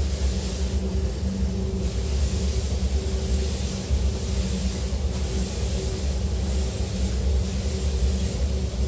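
Spray-booth ventilation running with a steady low hum, under the hiss of a compressed-air spray gun spraying glass coating; the hiss drops away briefly about a second in and again around five seconds.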